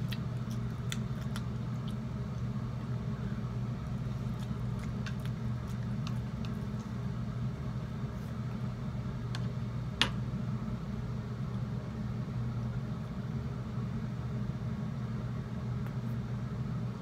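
Steady low hum in the room, with a few light clicks of a fork against a plate and one sharper click about ten seconds in.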